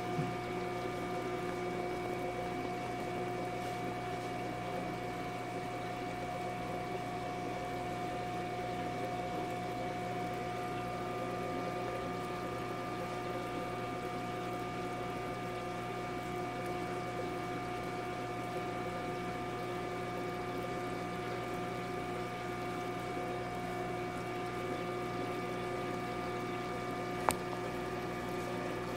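Aquarium water pump running with a steady hum of several fixed tones, with water trickling into the tank. A single sharp click near the end.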